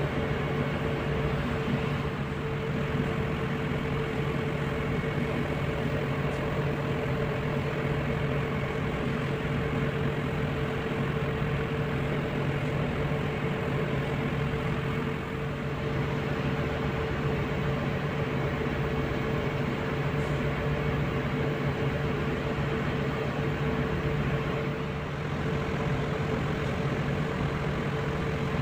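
Steady engine-room machinery drone: a constant low hum with a steady mid-pitched tone above it, unchanging throughout.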